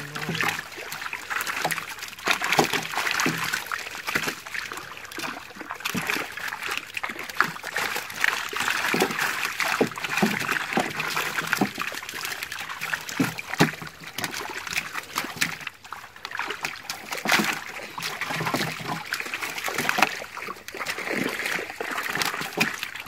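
Irregular splashing and trickling of shallow water as live fish thrash in a mesh fishing net and are scooped out by hand.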